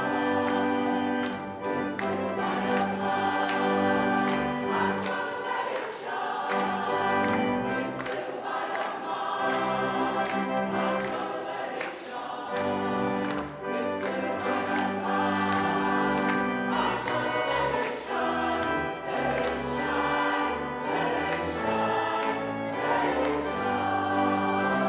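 Church choir singing a gospel-style anthem with pipe organ accompaniment, over steady hand-clapping about twice a second.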